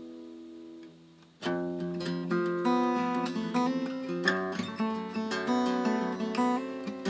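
Acoustic guitar: a held chord rings and fades away, then about one and a half seconds in the playing starts again with a run of picked notes and chords.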